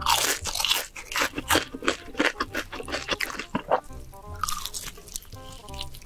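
Close-miked crunchy bites and chewing of glazed Korean fried chicken, a rapid run of crackling crunches, with background music underneath.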